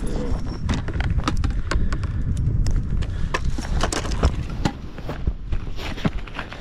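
Wind buffeting the microphone in a low, steady rumble, with scattered clicks and knocks as a yabby drop net is lifted and handled.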